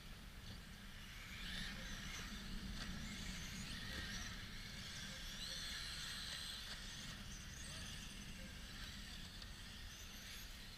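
Radio-controlled model racing cars on the track, their motors giving a high whine that rises and falls as they pass, louder from about a second and a half in. Steady low wind rumble sits under it.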